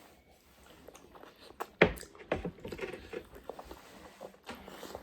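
Eating sounds close to the microphone: a sharp sound nearly two seconds in, then a run of small chewing noises.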